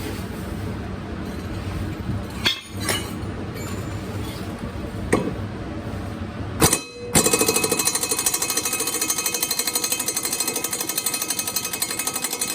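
A few sharp knocks, then an impact wrench hammering rapidly and steadily on a mower blade bolt for about five seconds before cutting off abruptly. The bolt does not break loose: it has been tightened by the blade striking a stump.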